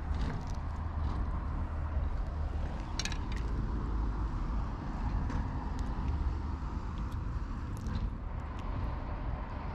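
Steady low rumble of distant road traffic, with a few faint short clicks about three seconds in and again near the end.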